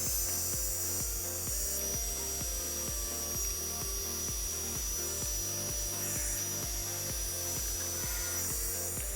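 Background music with a steady beat and a stepped bass line, with a steady high-pitched tone running underneath.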